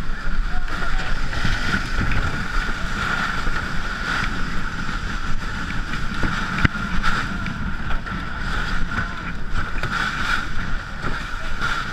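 Ice canoe's hull sliding over snow and ice as the crew push it at a run, a steady scrape with crunching kicks of boots in the snow. Wind buffets the microphone.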